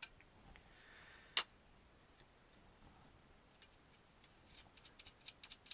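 Light clicks and taps of a small screw and kit parts being handled while a screw is moved. There is one sharp click about a second and a half in, then a run of small ticking clicks that grows busier near the end.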